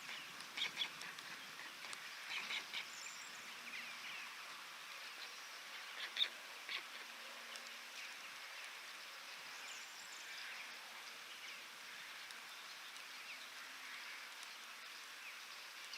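Steady hiss of rain falling, with scattered short calls and chirps of birds, most of them in the first half.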